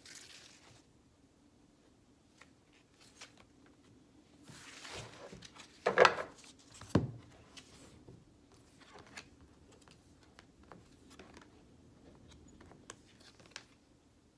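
Oracle cards being handled on a wooden table: soft slides and small clicks as cards are spread out, picked up and laid down. A louder rustle comes about six seconds in, and a thump a second later.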